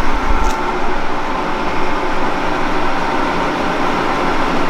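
BMW 3 Series Compact's straight-six engine running steadily through its exhaust, with no revving.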